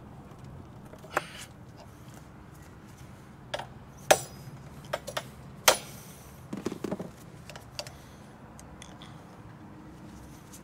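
A series of sharp clinks and knocks as junk is rummaged through and dropped in a dumpster, about eight hits spread over several seconds, the two loudest in the middle with a brief ringing.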